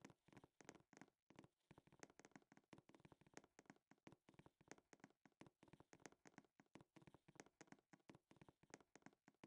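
Very faint, irregular tapping clicks, several a second.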